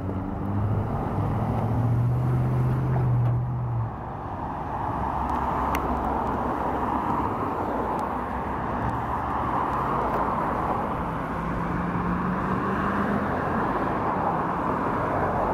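Road traffic at a signalled intersection: a car engine's low hum for the first few seconds, then a steady rush of tyres on the road from about five seconds in as a line of cars drives through on the green.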